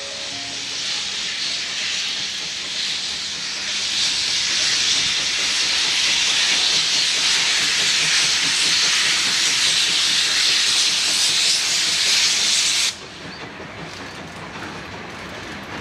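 Prussian P8 steam locomotive 38 2267 blowing steam from its cylinder drain cocks as it starts off, a loud hiss that builds over the first few seconds and cuts off suddenly near the end, leaving a quieter rumble of the train.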